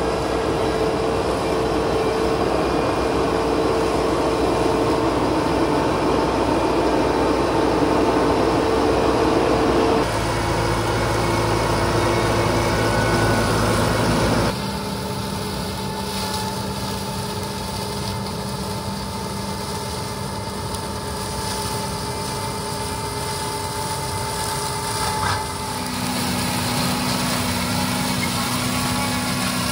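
McCormick X5.35 tractor's diesel engine running steadily with its PTO-driven DELEKS ALCE offset flail mulcher spinning and shredding tall grass. The steady hum shifts abruptly in pitch and loudness three times, about ten and fifteen seconds in and again near the end.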